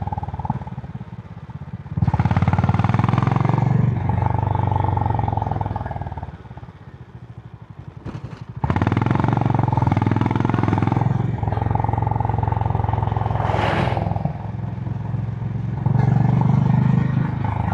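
Honda H'ness CB350's single-cylinder engine through its stock exhaust on the move, the throttle opening and closing through curves: it pulls loudly a couple of seconds in, eases off into a quiet coast midway, then pulls again, and again near the end.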